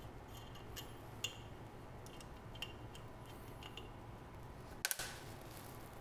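Light metallic clicks and ticks as the blue charging hose's fitting is screwed by hand onto the piercing valve on the refrigerator compressor's process tube, with a sharper double click a little before the end, over a low steady hum.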